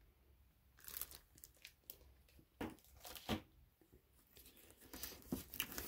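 Plastic bags around CGC graded comic slabs crinkling and rustling as a slab is handled and pulled out of its cardboard shipping box, with a few sharper knocks from the hard plastic cases. It starts about a second in and gets busier near the end.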